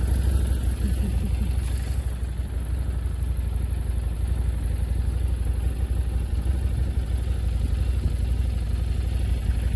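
Motorcycle engine running with a steady low rumble, mixed with wind noise on the microphone.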